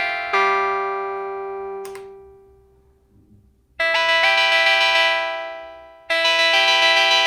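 Arturia MicroFreak synthesizer playing a factory preset: struck, bell-like notes that ring and fade away, a brief pause, then new notes about four seconds in. From about six seconds in, a note is held with a fast pulsing ripple.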